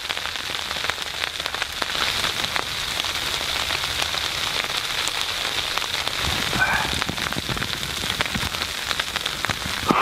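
Ice pellets (sleet) pattering steadily on tent fabric: a dense, even hiss of countless fine ticks.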